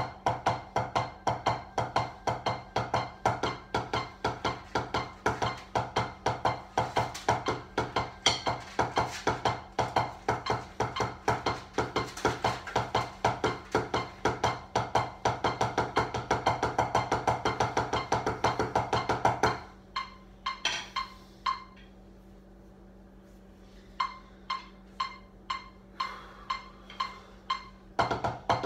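Wooden drumsticks striking a drum practice pad in fast, continuous strokes with regular louder accents. Roughly two-thirds through the playing stops for a few seconds, then comes back as a few sparse single strikes before the fast strokes resume near the end.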